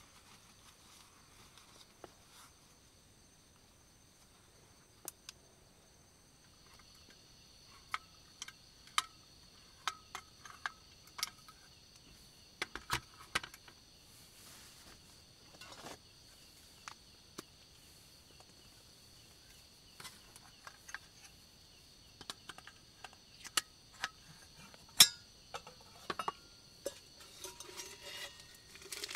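A steady high-pitched chorus of night insects, with scattered sharp clicks and clinks of metal camp cookware and a small gas canister stove being handled and set up. The loudest is a single sharp click about 25 seconds in.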